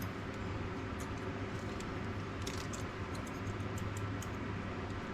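Light clicks and small rattles of plastic wiring-harness connectors being handled, over a steady low hum.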